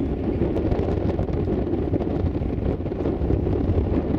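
Strong wind buffeting the camera microphone: a constant, fluttering low rumble with no engine tone in it.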